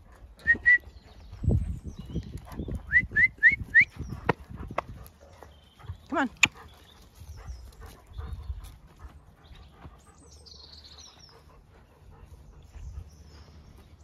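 Short, high, rising animal squeaks: two close together near the start, then four in quick succession a few seconds in, and one longer rising call about six seconds in. Scattered knocks of hooves and steps on the ground come in the first half, and faint birdsong follows later.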